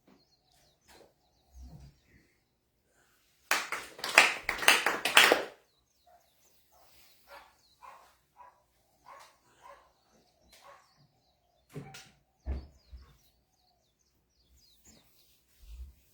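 A brief burst of hand clapping about three and a half seconds in, lasting around two seconds, followed by scattered faint knocks and shuffling.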